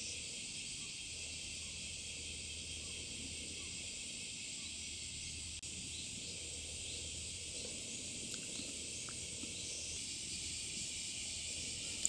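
Faint, steady high-pitched chirring of an outdoor insect chorus.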